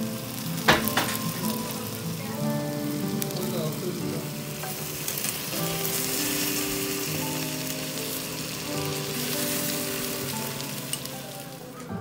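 Food frying in oil in a pan: a steady sizzle, with pieces of meat searing in a stainless steel pan. There is one sharp clack a little under a second in, and soft background music with sustained notes plays under the sizzle.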